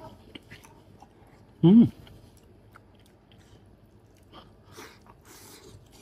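A man eating rice soaked in braised beef sauce with chopsticks: chewing and slurping mouthfuls, with light clicks of chopsticks on a porcelain bowl. About one and a half seconds in he gives a short, loud 'mm' hum.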